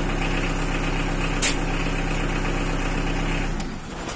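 Mitsubishi L300 pickup engine running steadily, heard from inside the cab, with one sharp click about a second and a half in. Near the end the running sound dies away.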